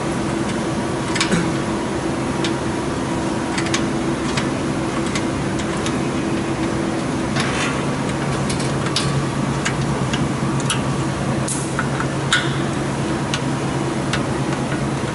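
A steady mechanical hum with irregular light clicks and taps of hand tools on metal parts. The hum changes to a lower tone about halfway through.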